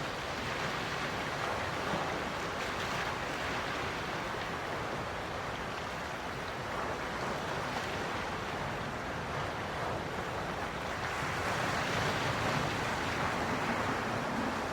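Gentle ocean waves washing in, a steady surf hiss that swells a little near the end.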